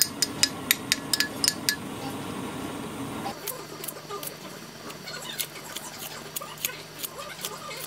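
Tableware clinking: a quick run of sharp, ringing clinks, then after a change of scene scattered lighter clicks over a low steady hum.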